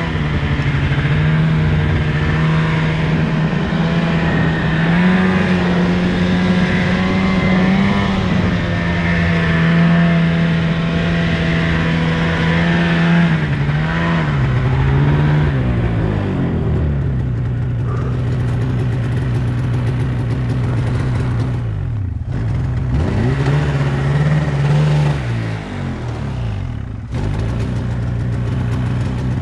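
Snowmobile engine running under throttle, its pitch rising and falling as the throttle is worked. About halfway through it settles to a lower, steady note, and twice near the end the throttle is let off briefly, the pitch dipping before it picks up again.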